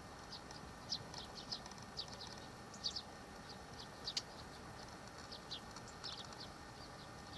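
Small birds chirping: many short, high, quickly falling chirps at irregular intervals, over a faint steady hum.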